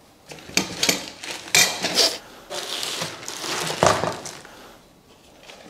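Steel rack parts clanking and scraping against each other as the rack is fitted together: several sharp metallic clanks with a scraping stretch in between.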